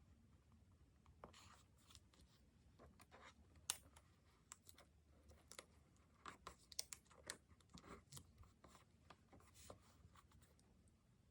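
Quiet close-up sounds of diary decorating: stickers and paper being handled, peeled and pressed onto a page, heard as scattered light ticks, rustles and scratches.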